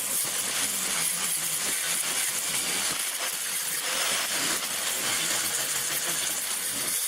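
A power tool working the edges of a steel sheet-metal panel, a steady hissing grind with no let-up, rounding off and narrowing the panel's front corners.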